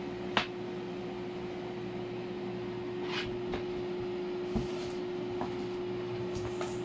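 Cherry ionizer air purifier running, its fan giving a steady whir with a constant hum. A few light taps sound over it, the clearest about half a second in.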